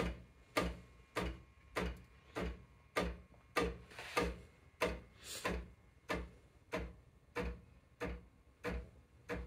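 Ascaso Steel Duo PID espresso machine knocking steadily just after its steam is switched on, about three sharp knocks every two seconds, each with a brief ring. This regular knocking is normal for the machine, and the owner presumes it lasts until steam pressure builds up.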